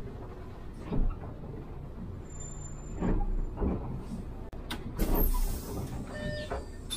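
Cabin noise of an Iveco Urbanway 12 diesel city bus: engine and road rumble with several knocks and rattles, and a sudden hiss of air about five seconds in that lasts about a second.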